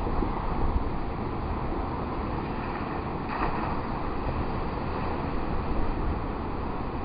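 Storm wind gusting over the microphone with a low rumble, and a brief louder rush about three seconds in.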